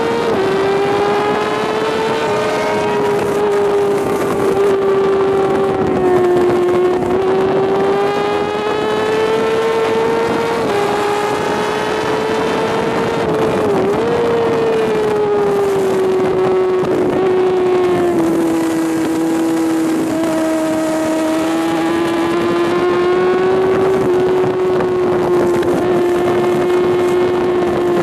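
Sport bike engine held at high revs on track, a steady high-pitched drone that rises and falls slightly, with brief dips twice near the middle, over rushing wind noise.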